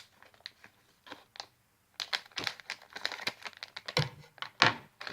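Plastic toy packaging crinkling and clicking as it is handled and opened. A few scattered clicks at first, then a dense run of irregular crackles from about two seconds in.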